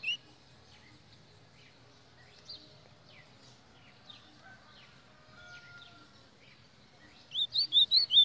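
Caged golinha (white-throated seedeater) singing. A burst of song stops just after the start, leaving only a few faint chirps. About seven seconds in the song returns as fast, loud, repeated rising chirps, roughly four a second.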